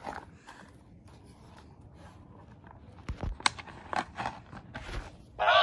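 Handling noise of a phone camera held close to a small animated snowman toy: rubbing and scraping with several sharp clicks and knocks, most of them about three to five seconds in. Right at the end the toy's electronic song starts up again.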